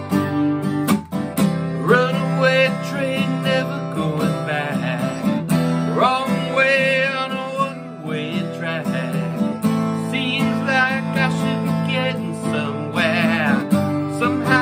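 Acoustic guitar strummed in steady chords, with a man singing over it in a wavering voice.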